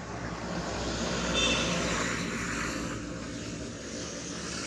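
Engine rumble of a passing motor vehicle, swelling to its loudest about a second and a half in and then easing off, with a brief high chirp near the peak.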